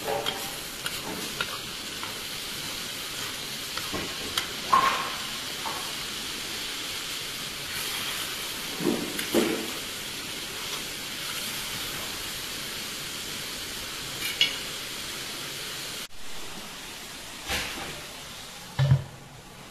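Plov rice and broth sizzling in a cast-iron kazan, with a metal skimmer scraping and tapping against the rice and pot as the rice is heaped into a mound for steaming. Near the end a metal bowl set over the kazan as a lid lands with a dull knock.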